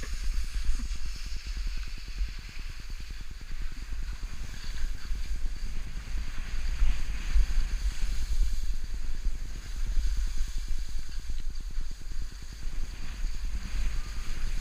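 Wind buffeting the microphone in a steady low rumble as the skier runs downhill, with the skis scraping over the snow underneath.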